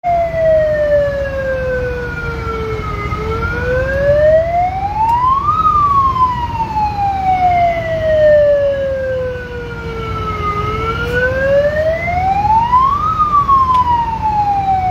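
Siren wailing slowly up and down, each rise taking about two and a half seconds and each fall about five; it peaks twice. A steady low rumble runs underneath.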